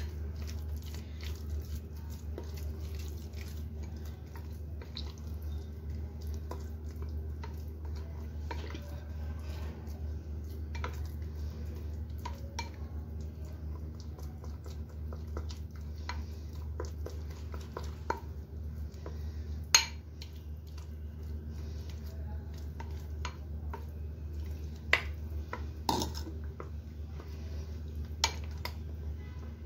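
A spoon stirring and scraping thick jowar-flour batter in a glass bowl. It makes soft wet scrapes with frequent light clinks against the glass, and a few louder clinks in the second half, over a steady low hum.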